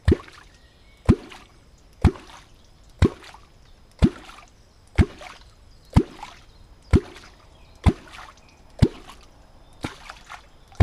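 Junkycat Diamond catfish clonk worked through the water in an easy, even rhythm, about one stroke a second, each stroke giving a low clonk, the call used to draw wels catfish. The last couple of strokes come weaker and less evenly.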